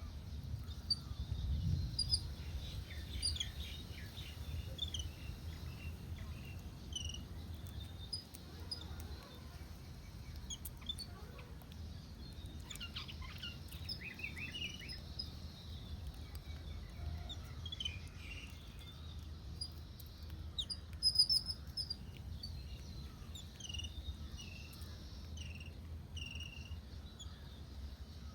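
Songbirds chirping and calling in short, scattered notes, several birds at once, over a steady low background rumble.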